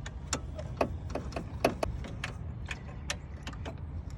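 Ratchet wrench clicking in short, irregular strokes, several a second, as the mounting bolt of a newly fitted alternator is tightened.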